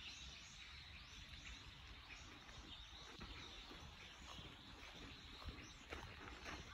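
Near silence: faint outdoor ambience with a low rumble and faint high chirps scattered through it.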